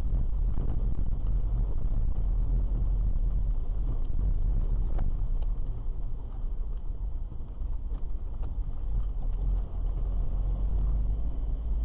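Car driving, with a steady low rumble of road and engine noise picked up by a dashcam inside the cabin and a few faint light knocks.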